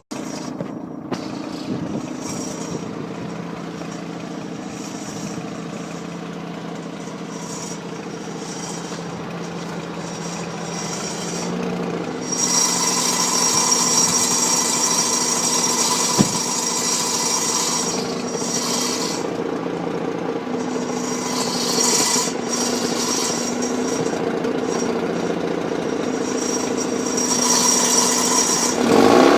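Mazda RX-8's twin-rotor rotary engine idling with an annoying noise from the exhaust, a steady sound that gets louder about twelve seconds in. There is a single sharp click about four seconds later.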